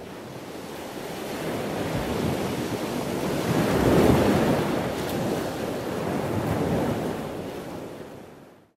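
Ocean waves washing: a rushing wash that swells to its loudest about four seconds in, then dies away near the end.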